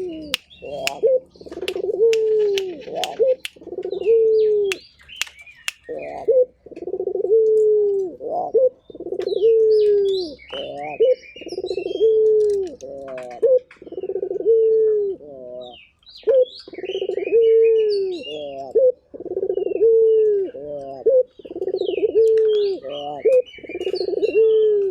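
A puter (Barbary dove) cooing over and over, deep coos about one a second, each falling in pitch, with short breaks near five and sixteen seconds in. Smaller birds chirp faintly at the same time, and a few sharp clicks come in the first five seconds.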